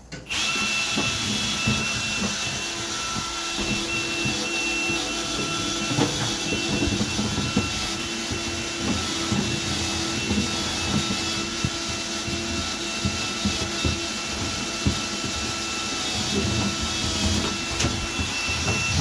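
A vacuum motor used for dryer vent cleaning switches on suddenly and runs steadily with a whine. Irregular knocks and rattles sound through it the whole time.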